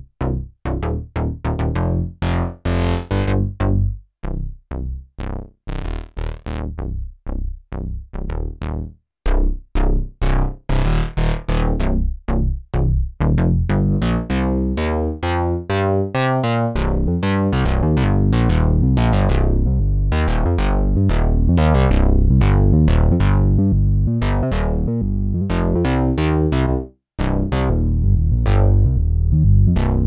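Sequential OB-6 analog synthesizer playing a bass patch: a run of short, punchy bass notes with gaps between them, turning into a denser line of notes that run together from about midway, with one brief break near the end.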